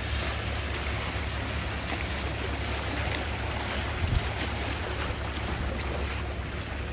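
Sea waves washing steadily, with wind rumbling on the microphone and a brief low thump about four seconds in.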